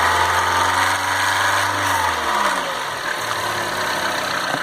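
Citroën C4 Lounge's 1.6 THP turbo petrol engine blipped: the revs held up briefly, then fall back and settle to idle about two seconds in. It is being checked for a diesel-like noise when cold, which the owner calls chronic to Citroën.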